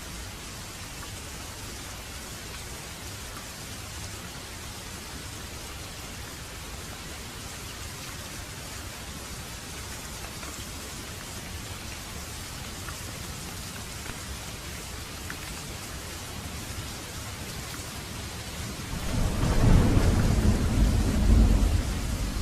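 Steady rain falling, an even hiss, with a long rumble of thunder starting near the end.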